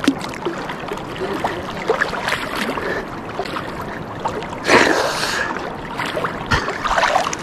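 River water lapping and splashing against a kayak's hull at the waterline, with small knocks and a louder swish of water about five seconds in.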